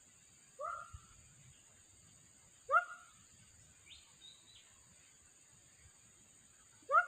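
A dog gives short yelps that rise quickly in pitch, three times, a couple of seconds apart, the last the loudest.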